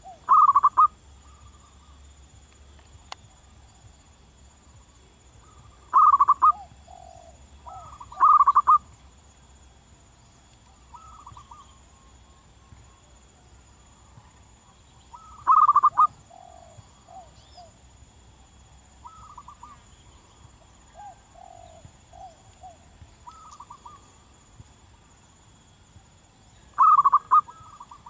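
Zebra dove (perkutut) singing its rapid, staccato cooing phrases again and again, a loud phrase every few seconds with fainter phrases in between. A faint steady high-pitched hum runs underneath.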